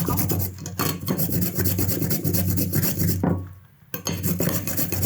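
Fresh ginger root grated on a coarse hand grater: quick, repeated scraping strokes, with a short pause about three seconds in.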